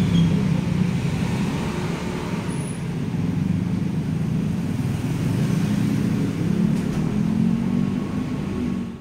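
Road traffic noise: a steady low rumble of motor vehicles running.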